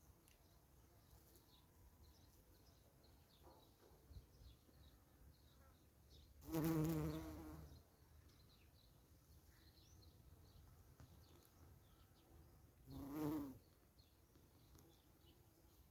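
A flying insect buzzing close by, twice: once for about a second a little before the middle, and again more briefly near the end.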